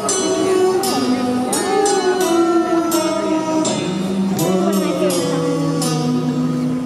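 Live band playing a slow ballad: a sung vocal line wavering over bright, chiming bell-like keyboard notes struck a couple of times a second, with a full stage mix in a large open-air venue.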